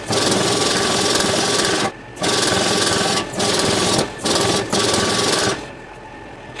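A power tool running in several bursts of one to two seconds with short breaks between, then stopping about a second before the end.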